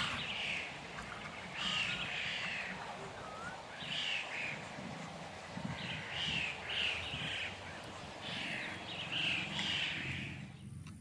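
Birds calling repeatedly: harsh calls in groups of two or three every second or two, over a steady low rumble.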